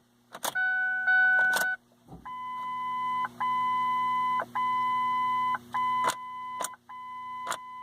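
Ford Focus dashboard warning chime sounding as the ignition key is worked: a short higher beep, then a steady tone repeating about once a second. Sharp clicks from the key and switch come in between, over a low steady hum, while the car will not start, a fault the owner puts down to the PATS anti-theft system.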